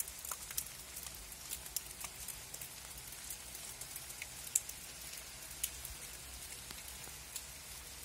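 Rain falling on a garden: a steady high hiss with many sharp, irregular drop ticks from individual drops and drips.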